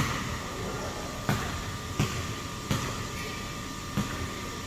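A basketball bouncing on a gym floor, five separate thuds at uneven intervals with a short echo after each, over a steady background hum.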